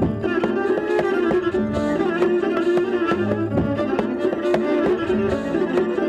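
Solo viola played live with a loop pedal: bowed lines layered over a phrase that repeats every three to four seconds, with many short, sharp percussive strokes on the strings.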